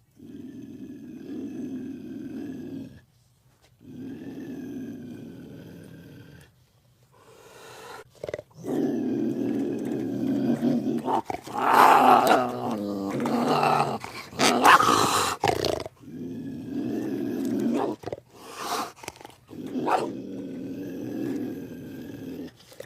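Dinosaur creature sound effects: two low, rumbling growls, then a louder run of roars with rising and falling pitch in the middle, then more growls and short calls near the end.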